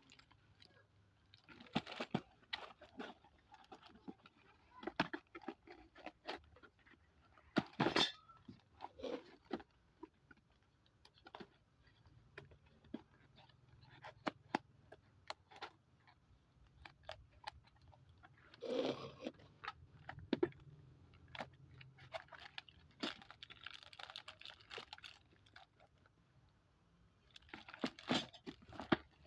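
Handling of a thin metal TV wall bracket and its packaging: scattered clicks, taps and crinkles, the loudest about 8 seconds in and again just before 19 seconds.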